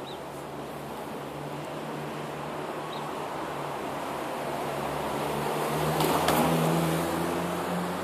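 Road traffic passing close by: a motor vehicle's engine and tyre noise grows louder to a peak about six to seven seconds in, then begins to fade.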